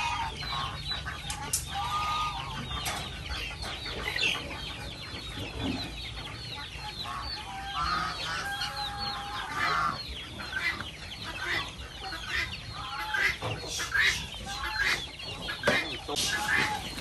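A farmyard flock of free-range chickens clucking and calling without a break: many short, overlapping calls.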